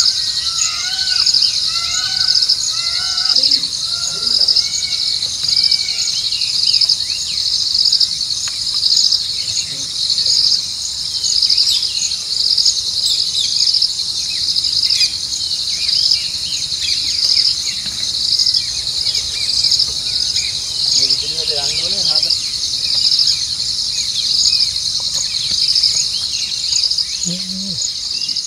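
A loud, high-pitched insect chorus trilling steadily and swelling and fading about every second and a half, with birds chirping over it, most in the first few seconds and again around the middle.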